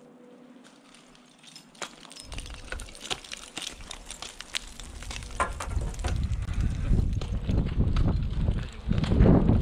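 Scattered clicks and knocks, then, from about six seconds in, a loud low rumbling buffet of wind on the microphone that grows toward the end.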